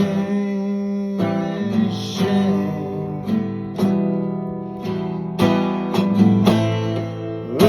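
Acoustic guitar strumming chords in a song, with no vocal line.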